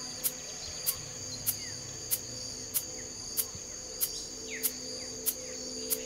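Crickets chirring steadily, with a soft tick about every 0.6 seconds keeping an even beat and a few faint chirps, as the quiet opening layer of an intro soundtrack.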